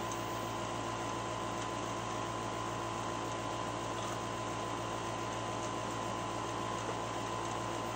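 Steady background hum and hiss of a small room, with a faint constant tone running through it and no distinct events.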